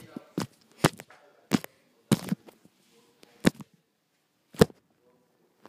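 Phone handling noise: about eight sharp knocks and bumps at uneven spacing, with faint rustling between them, as the phone is jostled and a hand knocks against it.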